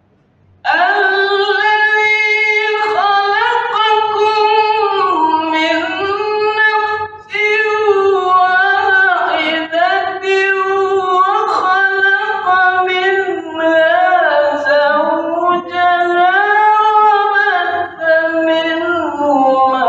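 A man reciting the Quran in melodic tilawah style: a high, sung voice starts about a second in, with long held notes ornamented by pitch turns and glides, in long breaths broken only by brief dips. The reciter has a cough and flu.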